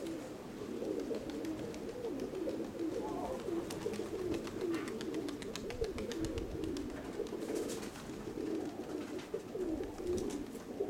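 Many Nikolaev pigeons cooing at once, a continuous overlapping burble, with a few faint clicks midway.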